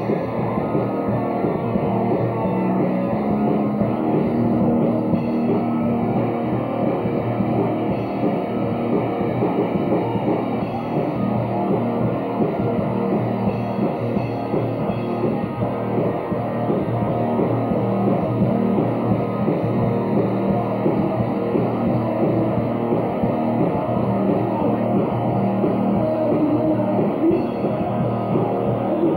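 Rock band playing live: electric guitar over a drum kit, steady throughout.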